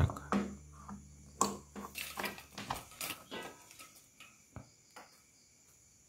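A power plug being pushed into a wall socket and handled: a string of short clicks and knocks, loudest in the first three seconds, that thin out to near silence.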